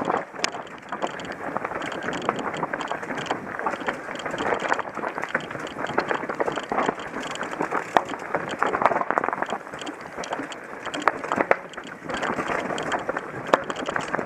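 Mountain bike descending a rocky, rooty dirt trail: tyres rolling over stones and roots with a steady clatter and frequent sharp knocks as the bike rattles over the rough ground.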